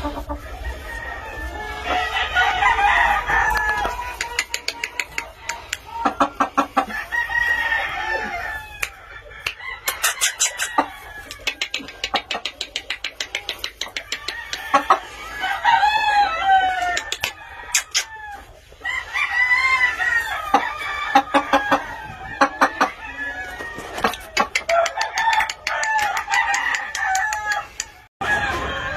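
Gamefowl chickens clucking and calling, with rapid runs of short clucks and a rooster crowing now and then.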